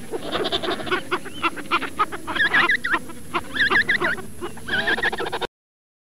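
African penguins braying: several calls of quick rising-and-falling notes with rapid clicking pulses between them. The sound cuts off suddenly near the end.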